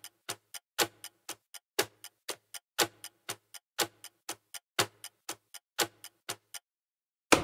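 Countdown-timer clock ticking: sharp ticks about four a second, every fourth one louder, marking the final seconds. The ticking stops about six and a half seconds in, and a single loud hit with a short low ring follows near the end as time runs out.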